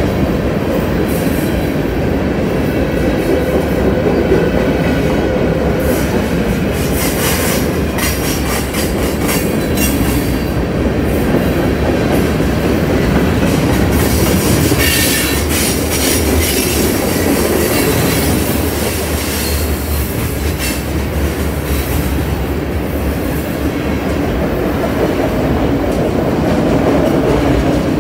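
Freight train's covered hopper cars and an autorack rolling past close by: a steady rumble of steel wheels on rail, with clacking over rail joints and a few brief high wheel squeals.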